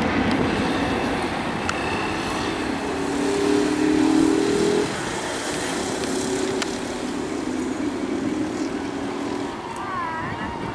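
Jet engines of a twin-engine airliner climbing away after takeoff: a steady rumble with a low drone, loudest about four seconds in and easing off after.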